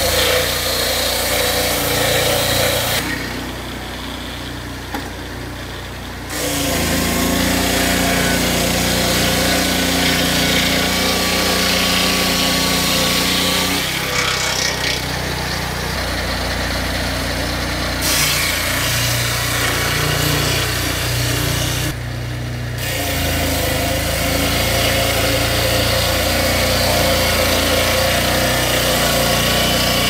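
Engine-driven portable circular-blade sawmill cutting through logs: the engine runs steadily under load beneath the rasping whine of the blade in the wood. The sound changes abruptly several times, with a quieter stretch about three to six seconds in.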